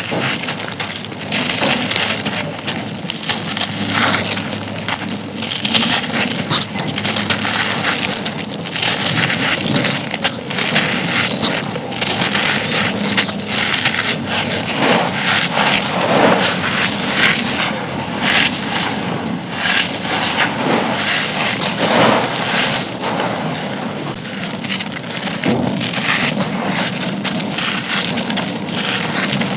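Dry black concrete slabs being crushed and crumbled, a dense continuous crunching and crackling.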